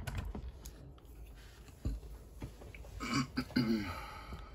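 Steering servo of a WPL C74 1/10 RC truck whirring in two short bursts about three seconds in as the front wheels are turned left and then right, the sign that the receiver has bound to the transmitter. A click comes just before.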